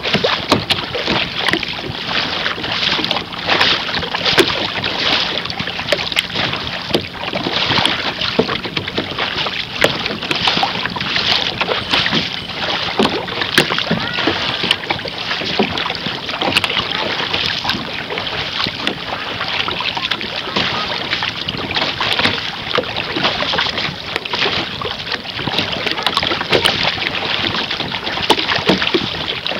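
Water splashing and slapping continuously against the bow of a moving canoe, heard close to the waterline, with wind buffeting the microphone.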